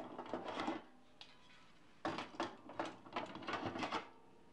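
Glock magazines being set down into a metal 50 cal ammo can, clicking and knocking against each other and the can in two short flurries, the second about two seconds in and busier.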